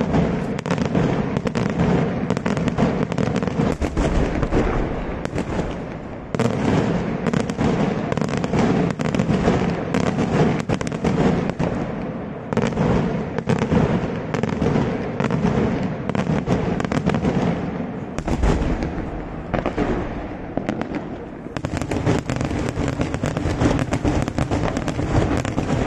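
Daytime aerial fireworks bursting in a dense, rapid barrage of bangs and crackles that runs almost without a break. It eases briefly about six and about twenty-one seconds in, and after the second lull it picks up even thicker.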